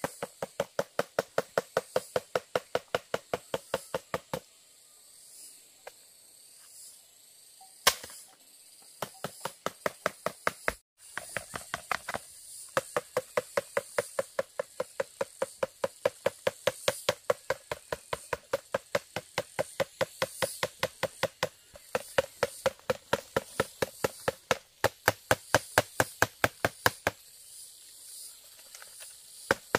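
Rapid, steady chopping with a knife on a wooden board, about five strokes a second in long runs, with a few short pauses.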